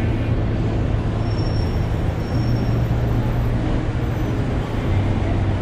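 City street traffic noise with a steady low engine rumble from nearby motor vehicles.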